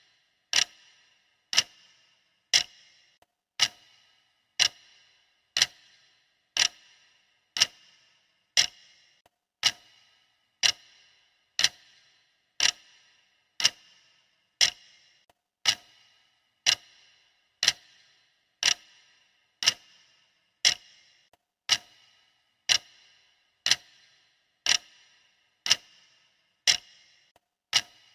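Clock ticking steadily, one sharp tick about every second, each with a brief ringing tail.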